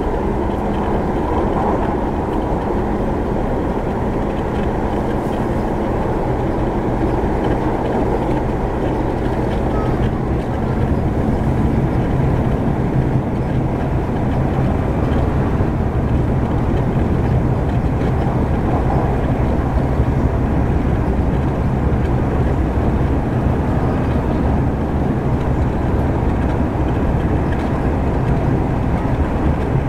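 Ride inside the motor car of a Hyundai Rotem R-train electric multiple unit running along the line: steady rumble of wheels on track with the low hum of the traction equipment, a little louder from about twelve seconds in.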